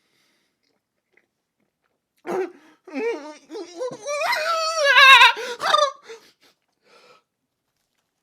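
A man's wordless vocal noise: a wobbling, warbling moan that climbs higher in its middle and lasts about four seconds, starting about two seconds in.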